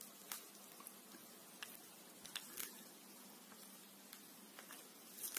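Faint, scattered small clicks and rustles of gloved hands handling and squeezing a small plastic bottle of water-based stamp ink over a stamp pad, over a faint steady low hum.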